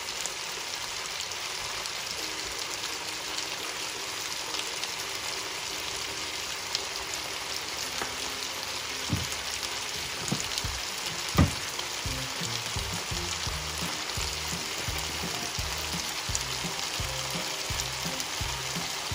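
Corn kernels and diced tomatoes sizzling steadily in a skillet, with one sharp knock about eleven seconds in. Background music with a steady beat comes in during the second half.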